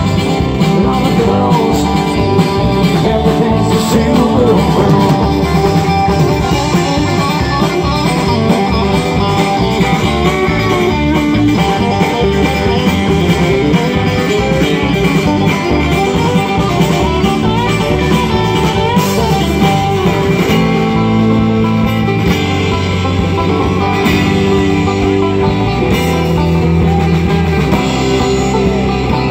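Live band playing an instrumental break, an electric guitar lead with bending, wavering notes over banjo, acoustic guitar, bass and drums.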